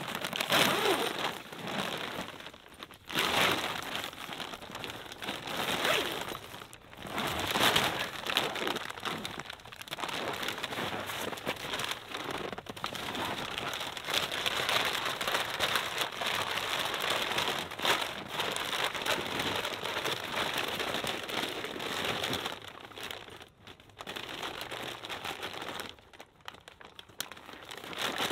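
Tent fabric rustling and crinkling in uneven surges as it is handled and the door flap is pulled open, easing off briefly a couple of times near the end.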